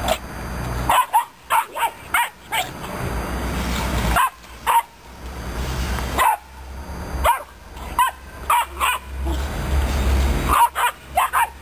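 Young Romanian Mioritic Shepherd dogs barking in quick clusters of short, sharp barks, about five bouts of one to five barks each.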